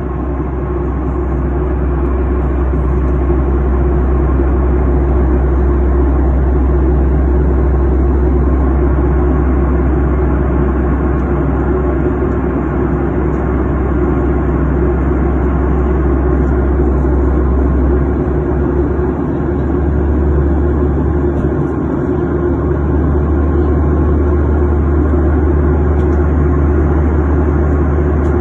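Steady drone of an airliner in flight heard inside the cabin: engine and airflow noise with a deep rumble that dips briefly a little past the middle.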